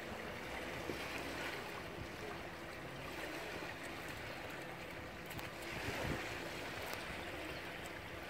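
Steady rush of fast-flowing, choppy river water, swelling briefly about a second in and again near six seconds.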